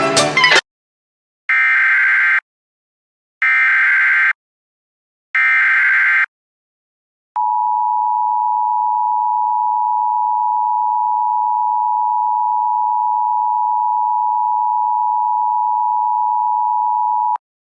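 Emergency Alert System tones: three short bursts of SAME header data, each about a second long with about a second between them, then after a pause the two-tone EAS attention signal (853 and 960 Hz) held steady for about ten seconds before cutting off. This sequence marks the start of an emergency alert.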